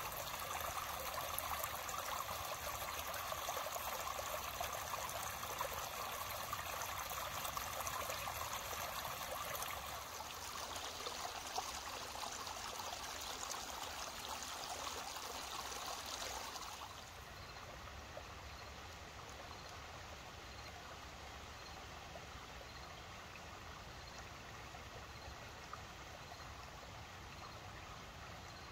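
A shallow creek running and trickling over stones. The steady water sound steps down in level about a third of the way in, and again more clearly a little past the middle.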